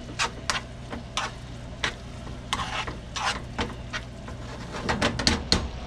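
A utensil stirring and scraping through a ground beef and vegetable filling in a nonstick frying pan, a run of irregular scrapes that come faster near the end, over a low sizzle of the mixture simmering in teriyaki marinade.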